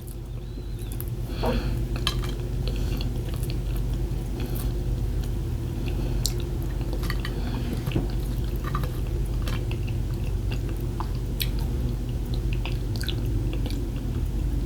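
Someone eating: chewing, with scattered light clicks of cutlery on a plate, over a steady low hum.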